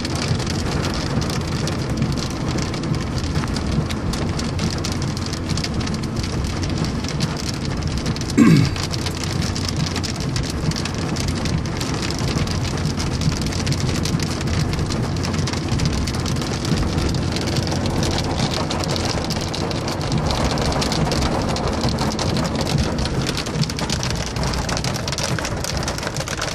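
Rain falling steadily on a moving car's roof and windows, with steady low road noise beneath. About eight seconds in, a brief loud sound slides quickly down in pitch.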